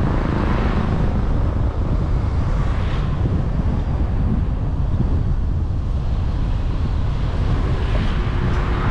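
Steady low rumble of a car driving through city traffic: road and engine noise, with a lighter hiss that swells briefly a few times.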